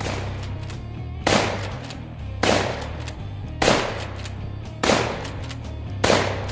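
Pro Series L lever-action 12-gauge shotgun firing five shots in steady succession, about one every 1.2 seconds, each a sharp report with a short echoing tail.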